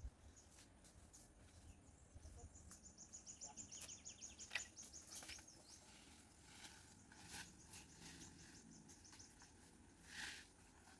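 Near silence with a faint, fast, high-pitched trill of rapid chirps from about two and a half to five and a half seconds in, and a soft brief noise near the end.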